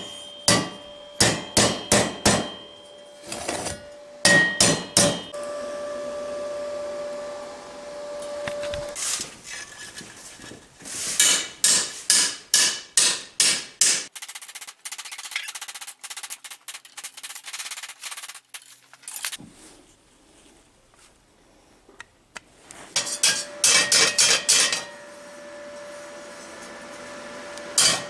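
Hammer blows on the steel parts of a homemade railway wheel as they are knocked together: quick runs of sharp strikes with pauses between, and the steel ringing after the blows. A stretch of lighter taps comes in the middle.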